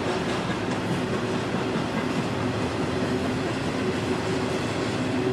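Freight train cars rolling past, with a steady rumble and rush of steel wheels on the rails.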